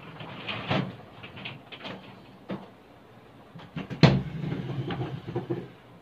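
Handling noises: a few knocks and some rustling as objects are moved about on a cart and a massage table. The loudest knock comes about four seconds in.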